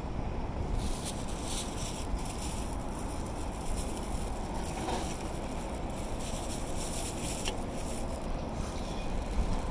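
Wind buffeting the microphone: a steady low rumble with a hiss that swells and fades.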